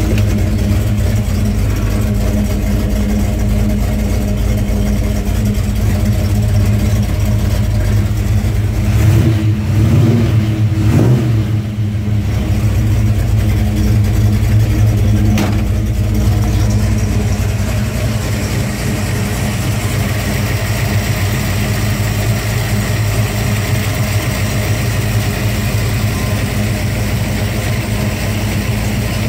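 Ford 351 Windsor V8 idling steadily, blipped twice about ten seconds in, the revs rising and falling back each time.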